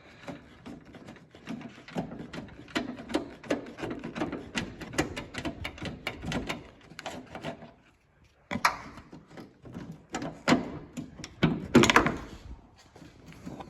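Ratchet wrench clicking in quick repeated strokes as M8 bolts holding a car's trunk lid lock are undone. After a brief pause, louder metallic knocks and clatter follow.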